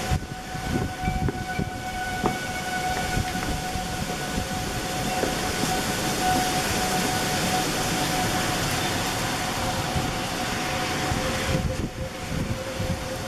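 Several tornado warning sirens sounding their steady alert tone, held at slightly different pitches, over a rushing noise that swells through the middle and low buffeting of wind on the microphone.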